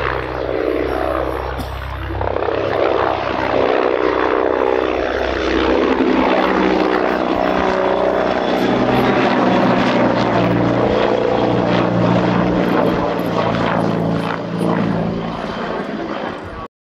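Agusta A129 Mangusta attack helicopter flying by, its rotor and twin turboshaft engines running loud and steady. The sound cuts off suddenly near the end.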